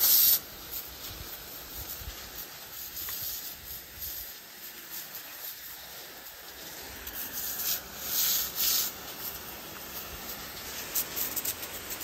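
High-pressure spray jet from a long wand hissing as it is sprayed up through durian leaves and branches. There are louder surges of spray noise at the start, about two thirds of the way through, and near the end.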